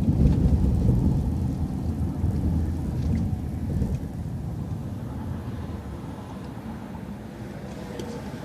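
Low, steady rumble of a transit bus's engine and road noise heard from on board as the bus turns and pulls away. It eases off after about four seconds.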